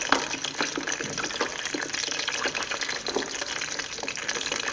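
Olive oil with crushed whole garlic cloves sizzling and crackling in a small pot as it heats toward the boil: a steady hiss full of small pops.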